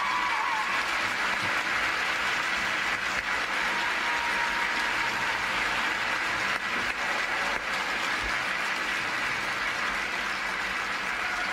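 Arena audience applauding steadily at the end of a figure-skating programme.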